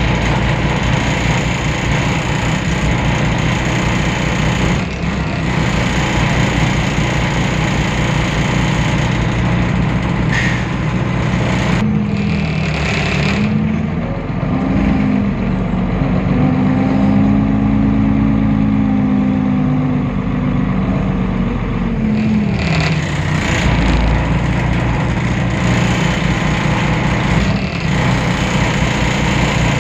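Temsa Avenue LF city bus's DAF PR 228 diesel engine and ZF automatic gearbox running steadily. About twelve seconds in, a humming tone rises, holds, and falls back about ten seconds later.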